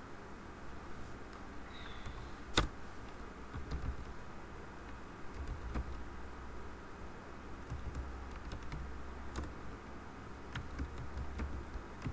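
Typing on a computer keyboard: scattered, irregular keystrokes with one sharp, louder click about two and a half seconds in, over a low hum.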